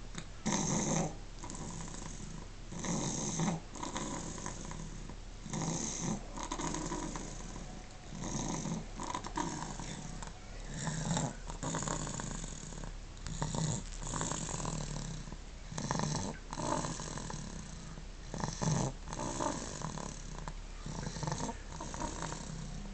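An eight-month-old baby snoring while dozing, a deep, adult-sounding "man snore" on each breath, coming roughly every one to two seconds.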